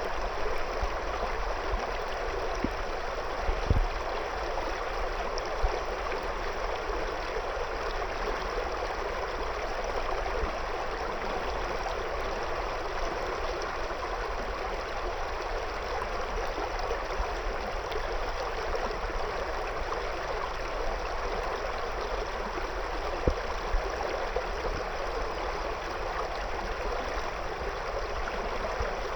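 River water flowing steadily over and around stones, a continuous rush with gurgling. A few brief low thumps stand out, near the start and again about two-thirds of the way through.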